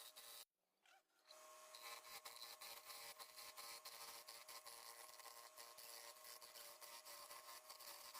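Quiet, rapid scraping of a tool on wood, like filing or rasping a carving, with a few faint steady tones underneath. The sound cuts out for about a second near the start, then resumes.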